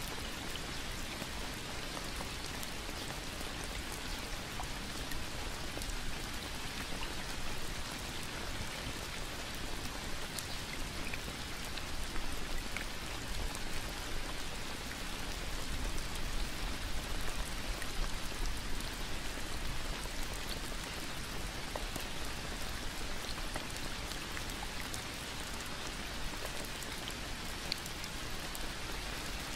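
Steady rain falling, an even hiss with many single drops ticking through it.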